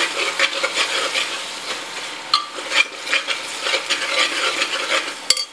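Thick onion, tomato and coconut masala sizzling in a pressure cooker on high flame while a metal spatula stirs and scrapes through it in repeated strokes. A sharp knock comes near the end.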